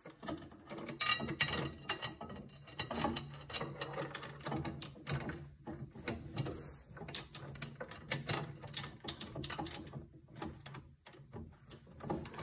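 Steel roller chain clinking and rattling in irregular clicks as it is handled and fitted onto a sprocket, its links knocking against the metal gears.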